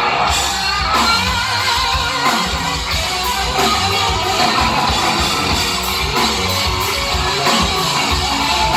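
Live rock band playing an instrumental passage without vocals, electric guitar to the fore.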